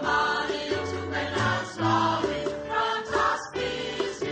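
A choir singing a song in harmony over steady low bass notes.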